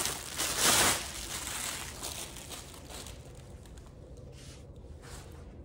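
Parcel packaging rustling and crinkling as it is unwrapped by hand. It is loudest about a second in, then fades to faint scattered rustles.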